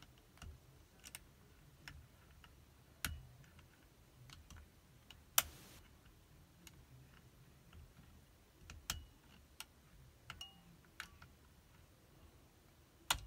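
Faint, irregular metal clicks and ticks of a pick and tension wrench working the levers of a safety deposit box lever lock. A sharper click comes about five seconds in, and another near the end as the lock comes open.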